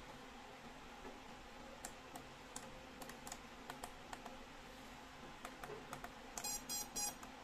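Light plastic clicks from an FPV radio transmitter's switches and a laptop keyboard, then a quick run of short electronic beeps about six and a half seconds in.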